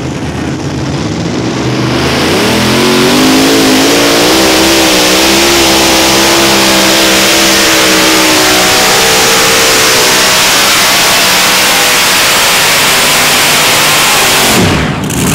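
Multi-engine unlimited-class pulling tractor on a pull: the engines run low for a moment, rise in pitch to full throttle about two seconds in, and hold there while it drags the weight-transfer sled, then drop off sharply near the end.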